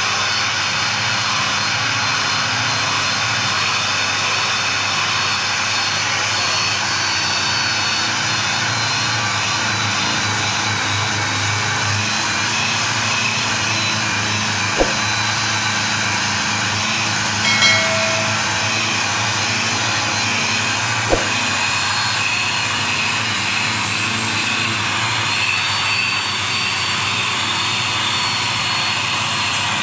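Steady loud roar of heavy industrial machinery with a low hum. Two sharp knocks come about six seconds apart near the middle, with a brief higher-pitched sound between them.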